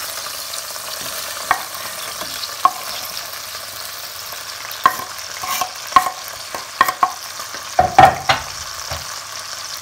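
Cherry tomatoes frying in olive oil in a terracotta pot, a steady sizzle. Scattered knocks and clicks come as chopped vegetables are scraped off a wooden cutting board with a knife into the pot, the loudest near the end.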